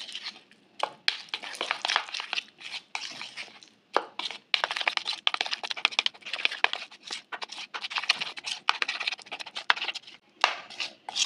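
Metal spoon stirring a thick yogurt and spice marinade in a bowl: quick, irregular wet scraping and clicking of the spoon against the bowl, with a short pause about four seconds in.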